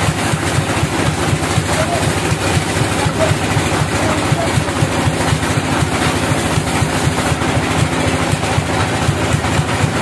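Sawmill machinery running steadily: a loud, even mechanical drone with a fast low throb from the mill's power unit and saw.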